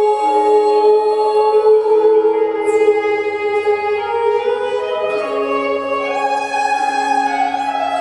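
Slow music with long held notes, several pitches sounding together.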